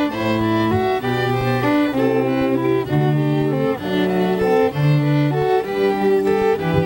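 Bowed string music, violin and cello, playing a melody of held notes over a bass line that moves to a new note about once a second.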